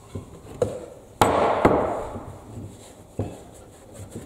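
Sharp knocks on wood, about five in all, the two loudest close together about a second in, followed by a short rough scrape that fades away.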